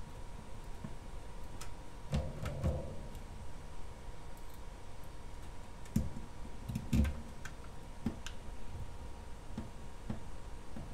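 Scattered small clicks and light knocks of metal parts being handled: screws and a small tool against the metal frame of a resin printer's FEP vat, with a few heavier knocks about two and seven seconds in.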